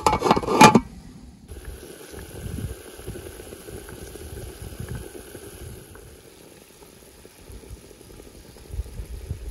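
An enamel pot lid clatters as it is lifted off in the first second, then a pot of lamb soup bubbles steadily at the boil.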